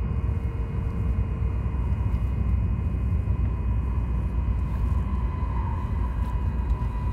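Joetsu Shinkansen bullet train running at speed, heard from inside the passenger cabin: a steady low rumble of running noise with a faint, steady high tone over it.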